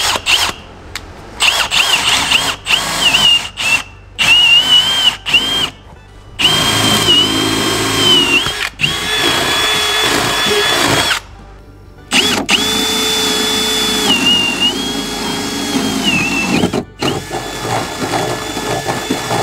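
Cordless drill with a spade bit boring holes through wooden framing. It runs in a series of bursts of motor whine that start and stop, and the pitch dips as the bit bites into the wood.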